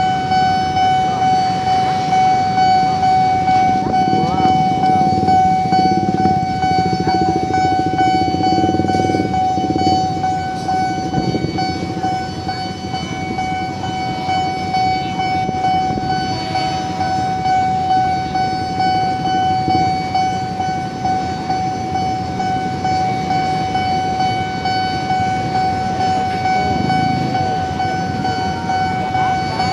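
Railway level-crossing warning bell ringing continuously, a high steady ringing tone that pulses evenly, over the low rumble of road traffic and motorbikes.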